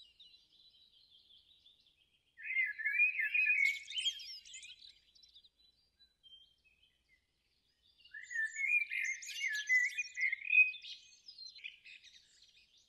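A songbird singing two long phrases of quick, varied notes, the first about two seconds long and the second about three, with faint chirps between them.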